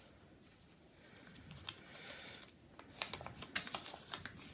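Faint rustling of cut paper pieces being handled and slid across a tabletop, with a soft swish partway through and a run of light taps and crinkles near the end.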